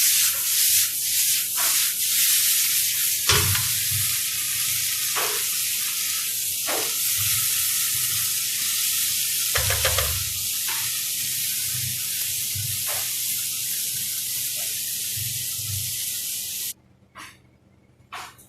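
Food sizzling in oil in a frying pan, with a spatula scraping and stirring every second or two. The sizzle cuts off suddenly near the end.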